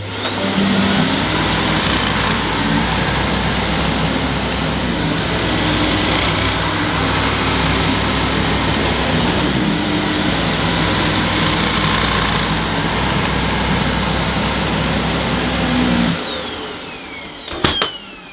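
Dyson Ball Animal Multifloor upright vacuum cleaner running on deep plush carpet on its low-pile setting, a steady high motor whine over a low brush-roll hum, with a slight strain on the brush roll motor but no cutting out. About 16 seconds in it is switched off and the whine falls away as the motor spins down, followed by a couple of sharp clicks.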